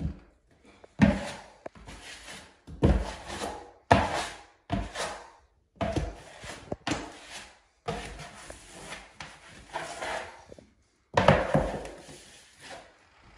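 A plastic wallpaper smoother stroked repeatedly over wallpaper into the crease above the baseboard, about one stroke a second, each starting sharply and fading.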